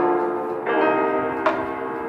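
Instrumental background music of bell-like chimes, a new ringing note struck about every three-quarters of a second and each left to fade.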